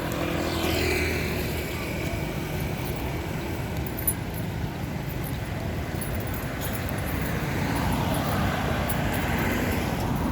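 Road traffic passing close by. One vehicle goes past with a falling pitch in the first couple of seconds, and another swells up about eight seconds in.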